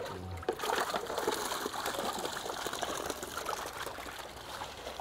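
Water sloshing and splashing in a boat's live well as a water-holding bait net scoops live bait fish out, with many small splashes that ease off near the end as the full net is lifted clear.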